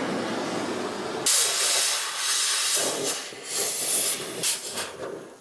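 Oxy-acetylene cutting torch hissing as it heats and then cuts rusted steel. About a second in the hiss grows louder and sharper, then it wavers and fades somewhat near the end.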